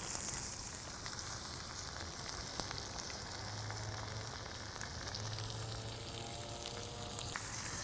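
Tomahawk ribeye steak sizzling on the hot flat-top griddle of a charcoal grill: a steady hiss of fat and juices with small crackles.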